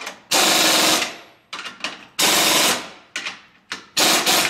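Air impact wrench rattling on the U-bolt nuts of a Jeep's rear axle, in three runs of about half a second each with short blips between, as the nuts are tightened a little at a time so the U-bolt pulls in straight.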